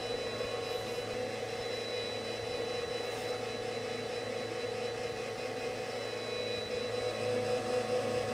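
Laboratory homogenizer running steadily at 60% speed in a Karl Fischer titration cell, a constant motor whine as its shaft shreds a piece of gummy candy in the methanol–formamide solvent so that the water is released for titration.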